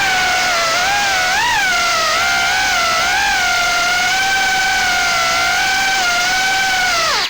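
Motors and propellers of a 3-inch FPV quadcopter (GEPRC 1206 4500kv brushless motors with Gemfan 3028 props) whining in flight, the pitch wavering up and down with throttle. Near the end the whine drops steeply in pitch and cuts off as the motors spool down.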